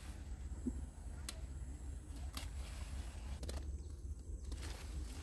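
Faint sharp snaps, three or four about a second apart, as small white eggplants are snapped off their stems by hand, over a steady low rumble.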